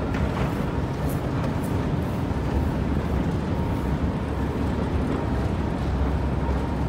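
Escalator running: a steady low mechanical rumble, with a couple of faint clicks about a second in.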